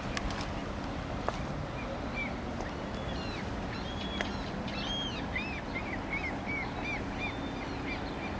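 A small bird chirping: a series of short, arched high notes, repeating at about three a second in the second half. Under it runs a steady outdoor hiss with a faint low hum, and a few sharp clicks sound near the start.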